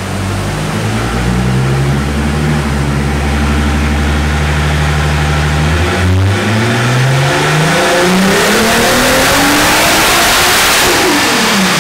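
Turbocharged 3.2 VR6 engine of an Audi A3 making a dyno pull on low boost, about 15 PSI. It holds steady at low revs for about six seconds, then revs climb steadily for about five seconds under full throttle before dropping away as it lifts off near the end.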